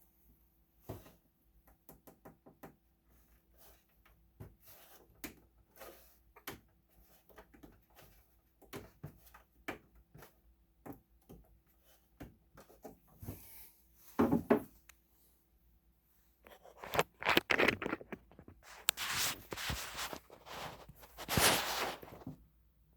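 Needle-nose pliers working a brittle plastic support foot on the underside of a Tektronix TDS 744A oscilloscope: a long run of small, scattered clicks and knocks as the jaws grip and wiggle the foot. A louder knock comes about two-thirds of the way through, then a spell of louder scraping and rattling near the end.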